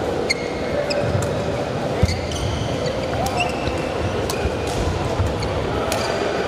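Badminton rally: sharp racket strikes on the shuttlecock, several times, and short squeaks of court shoes on the mat, over the steady background noise of a sports hall with other matches in play.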